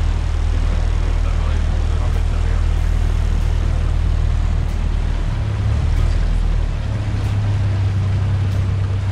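A river cruise boat's engine running steadily with a low drone under the rush of water and wind; the drone steps up in pitch a little past halfway through.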